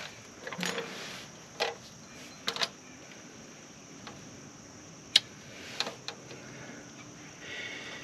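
Scattered metal clinks and taps of hand tools being handled on pavement: long-reach needle-nose pliers picked up and brought to the drum brake hardware, with one sharp click about five seconds in.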